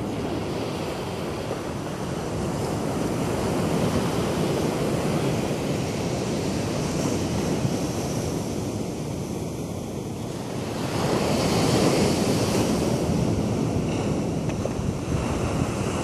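Ocean surf: small waves breaking and washing up the beach in a continuous rush, with a louder surge about two-thirds of the way through.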